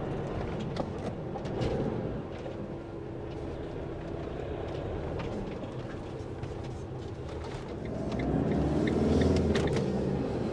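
Camper van engine running while driving, with a steady hum and road noise. Near the end the engine sound swells and its pitch rises and falls.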